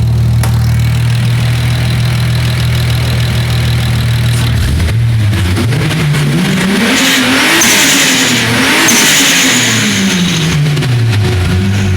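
Single-turbo Toyota 2JZ straight-six in an MK3 Supra idling, then revved about five seconds in: the engine note climbs, peaks twice a second or so apart with a high hiss at the top, and falls back to idle near the end.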